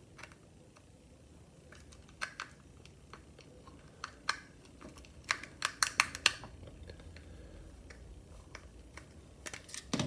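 Light plastic clicks and taps from a small universal garage door remote being handled. They are scattered, with a quick run of clicks a little past the middle.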